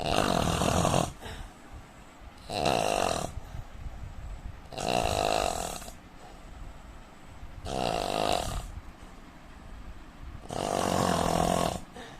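A man snoring in a steady rhythm: five snores, each about a second long, coming roughly every three seconds.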